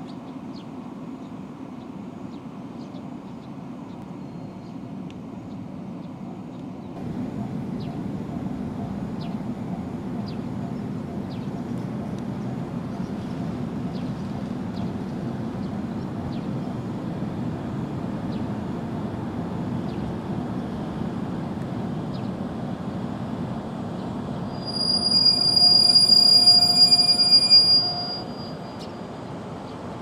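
Electric train running along the track with a steady rumble that grows louder about seven seconds in, then a loud high-pitched squeal lasting about three seconds near the end.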